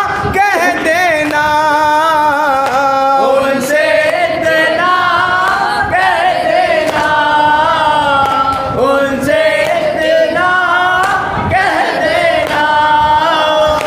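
A man singing a noha, a Shia mourning lament, unaccompanied in long, wavering held notes.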